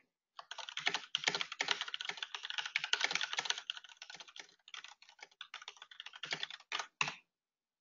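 Fast typing on a computer keyboard: a dense run of key clicks as a sentence is typed, thinning out and stopping shortly before the end.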